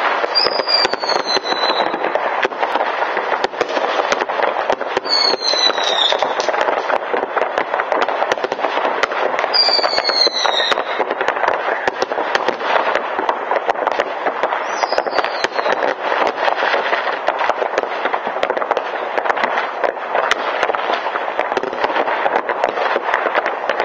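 New Year's Eve fireworks: a continuous barrage of bangs and crackles from many rockets and firecrackers going off at once. Short whistles falling in pitch cut through it about four times.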